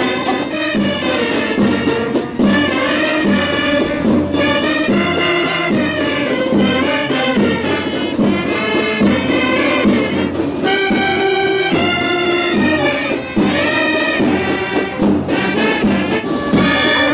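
Brass band music, trumpets and trombones carrying a tune over a steady beat.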